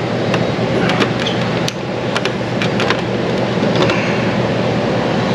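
A steady low mechanical hum with scattered light clicks and taps.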